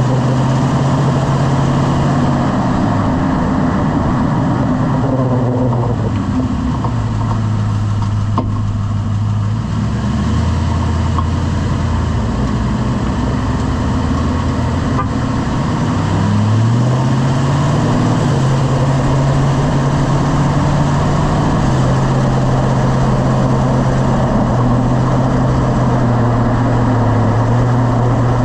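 Lifted truck driving, its engine and drivetrain drone dropping in pitch as it slows a few seconds in. The drone stays low for about ten seconds, then rises again as the truck picks up speed.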